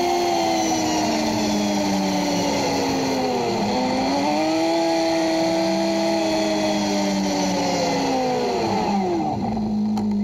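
CFMoto UForce 600 side-by-side's engine running at road speed. Its pitch dips and climbs again about a third of the way in, then falls away near the end as the machine slows and settles to a steady idle.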